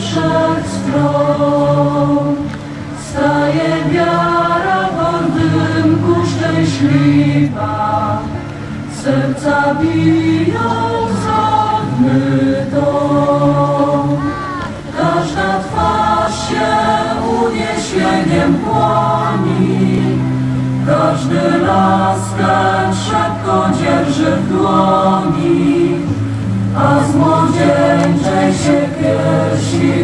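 A choir singing slow, held chords in several voices.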